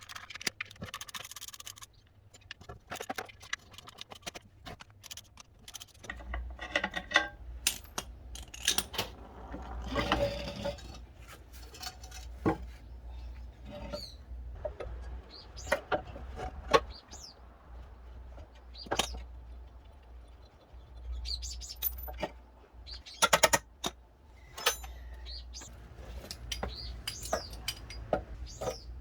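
Metal parts and tools clinking, tapping and rattling at irregular intervals, as when a water pump is taken apart, over a low steady hum.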